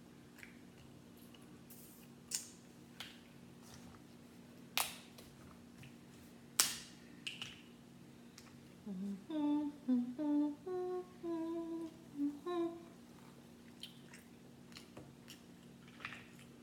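Sharp cracks and snaps of crab-leg shells being broken apart by hand, a handful in the first seven seconds, the loudest about six and a half seconds in. Then a woman hums a short tune of several held notes for about four seconds.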